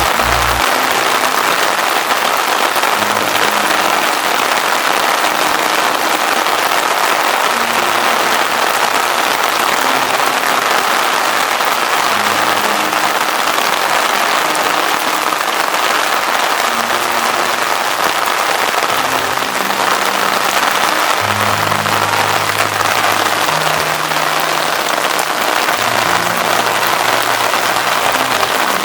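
Steady rain falling on a rooftop: a dense, even hiss. Background music plays underneath, with slow held low notes.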